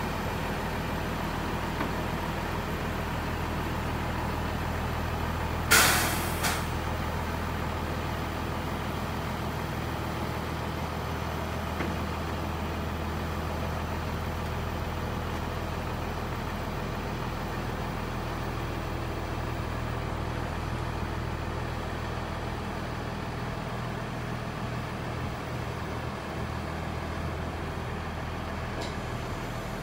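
Scania 124G truck's diesel engine running with a steady hum while it drives the loader crane's hydraulics as the boom moves. About six seconds in there is one short, loud hiss.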